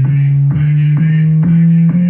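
Car-audio subwoofer box in a Renault Clio's trunk playing loud, steady bass tones. The pitch steps up about every half second, each step starting with a small click.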